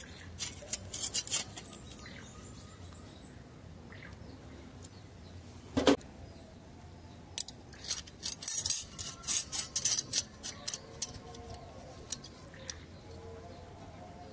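Small steel parts clicking and clinking in irregular clusters as rivets and cover plates are fitted by hand onto the rebuilt gear assembly, with one louder click about six seconds in.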